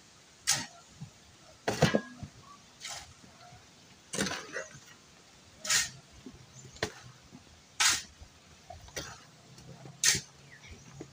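A series of about nine short, sharp knocks or scrapes of hand tools at building work, roughly one a second.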